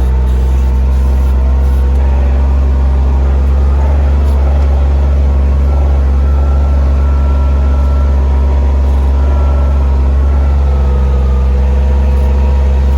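A vehicle engine running loudly and steadily at an even speed.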